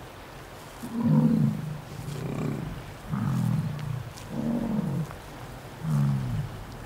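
An animal calling: five short, low-pitched calls, each about half a second long, about one a second.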